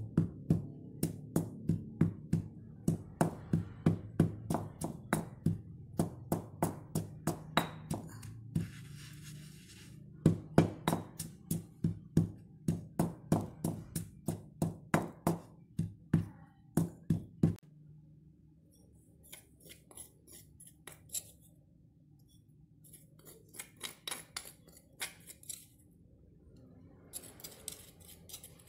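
Stone pestle knocking and grinding a dry, crumbly spice mixture in a stone mortar (Indonesian cobek and ulekan), about two to three knocks a second, with a brief pause about eight seconds in; the grinding stops a little past halfway. After that comes softer, scattered scraping as the ground mixture is scooped from the stone mortar.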